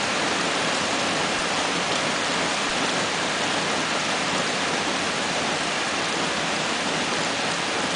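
Steady rain falling, an even hiss with no breaks or single drops standing out.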